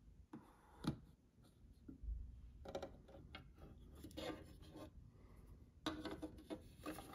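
Hand turning and sliding an Audiodisc recording blank on a turntable platter: a few short, faint rubbing and scraping sounds of the disc and fingers against the platter.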